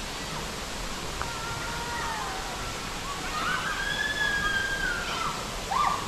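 Steady rush of a waterfall plunging into a pool. Faint, drawn-out calls from distant voices ride over it twice.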